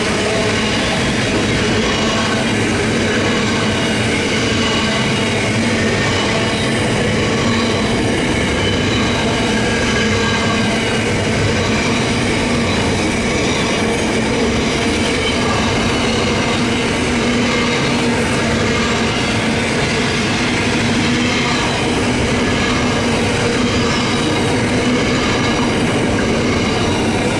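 Container wagons of a long freight train rolling past: a steady, loud noise of steel wheels running on the rails, with a few steady ringing tones over it.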